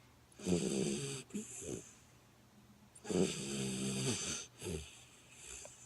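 Goldendoodle puppy snoring in her sleep: two rasping snores about two and a half seconds apart, each about a second long and followed by a shorter, weaker breath.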